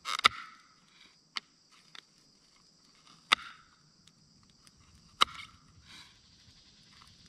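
A knife cutting a soft white block into cubes on a small plate, the blade striking the plate in four sharp clicks spaced a second or two apart, the loudest near the start.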